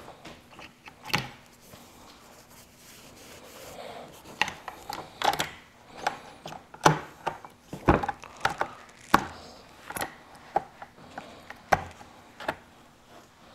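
Irregular metal clicks and knocks with some rubbing as the trigger assembly of a Remington 1100 shotgun is worked by hand into the receiver, jiggled to line up its pin holes. The clicks are sparse at first and come thicker from about a third of the way in.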